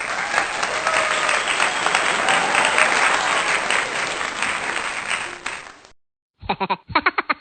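Applause, fading out about six seconds in. After a brief silence a new clip starts with a quick run of short pitched sounds.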